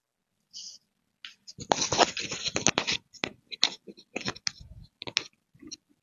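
Cloth rustling and scratching as a dupatta is handled and draped: a dense stretch of scratching about two seconds in, then scattered sharp scratches and clicks.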